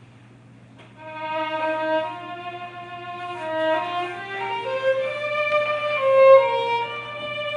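A violin playing a slow, single-line melody of held notes, starting about a second in.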